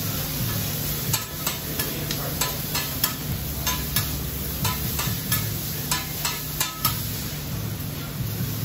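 Steel spatula and fork clacking and scraping against a hot hibachi flat-top griddle as steak is cut and turned, about two sharp clacks a second from about a second in until about seven seconds. Under it is a steady sizzle of steak frying with soy sauce, over a low hum.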